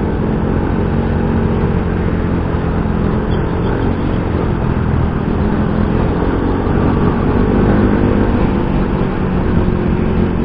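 Yamaha Mio i 125 scooter's engine running while riding in traffic, with road and wind noise on the action camera's external mic; the engine note rises a little about seven to eight seconds in.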